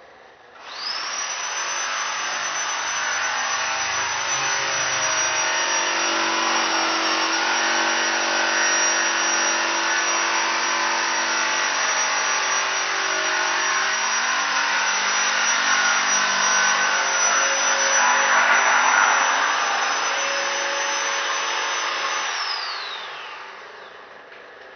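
Electric power tool motor spinning up about a second in and running steadily with a high whine for some twenty seconds, then winding down near the end.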